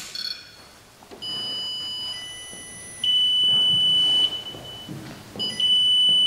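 Ghost-hunting geophone vibration sensor, just switched on, sounding three steady high electronic beeps of about a second each as it registers vibration through the table. Faint knocks sound between the beeps.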